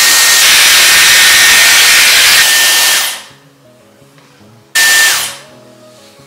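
Dyson Airwrap hair styler blowing hot air: a loud steady rush of air with a high whine. It winds down about three seconds in, comes back on for half a second near five seconds, and winds down again.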